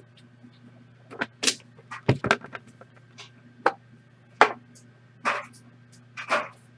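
Handling noises at a table: about a dozen sharp clicks, taps and short rustles at irregular intervals, over a steady low electrical hum.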